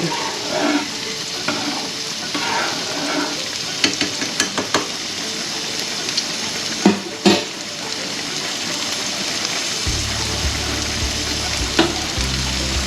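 Onions sizzling in olive oil in a frying pan, with a utensil knocking against the pan a few times as they are stirred.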